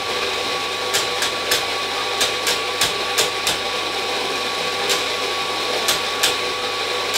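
Rancilio Rocky burr grinder running steadily, grinding coffee beans, with a steady motor hum and a run of sharp, irregular clicks.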